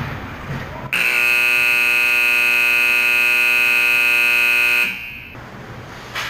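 Ice rink's period-end horn sounding one loud, steady blast of about four seconds, signalling the end of the first period.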